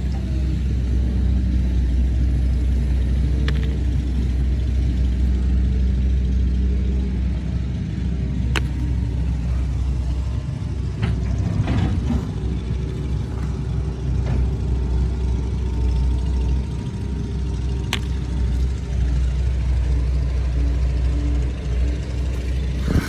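Heavy machinery's diesel engine running steadily, with a few sharp metallic clanks about a third of the way in, around the middle and again later.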